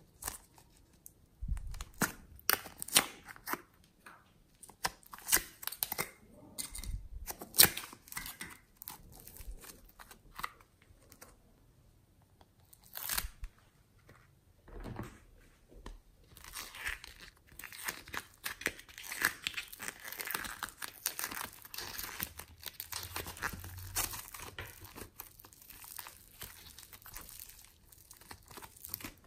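Hands handling slime tubs and clay: scattered sharp taps and clicks through the first half, then soft rainbow modelling clay squeezed and pulled apart in the fingers, a dense crackly tearing sound through the second half.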